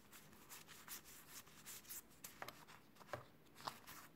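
Faint rustling and light taps of paper sticker sheets being handled and leafed through, with a couple of slightly louder ticks near the end.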